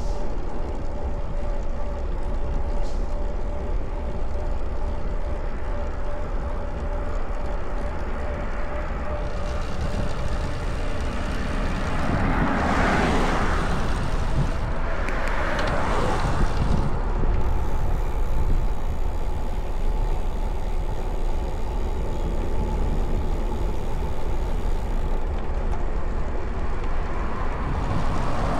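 Steady wind rumble on the microphone of a bicycle-mounted camera while riding, with two cars passing in quick succession about halfway through, each swelling and fading, and another car passing near the end.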